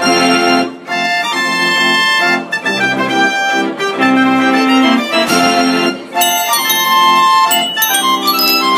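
Large concert fair organ (Konzertorgel) playing a tune through its pipes: changing chords over a bass line. A run of high, bright notes comes in about six seconds in.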